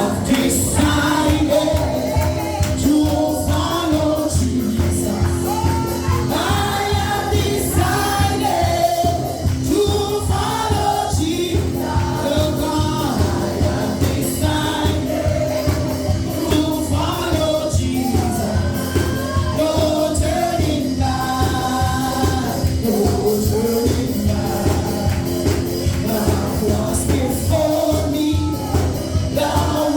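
Gospel worship song: a choir singing over a steady drum beat.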